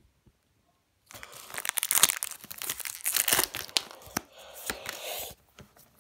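Foil Pokémon TCG booster pack wrapper being torn open and crinkled by hand: a dense crackling that starts about a second in and lasts about four seconds.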